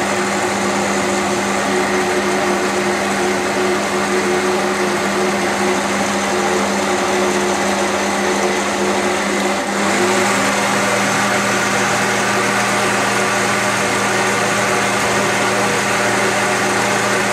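Electric blender motor running steadily and loudly, blending bananas, oranges and tomatoes into juice. Its tone shifts slightly about ten seconds in.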